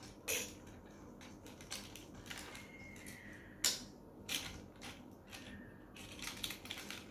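Light, scattered plastic clicks and rattles of a toy car-carrier truck and toy cars being handled as cars are taken off its decks and set down. The sharpest click comes about three and a half seconds in, and there is a small flurry near the end.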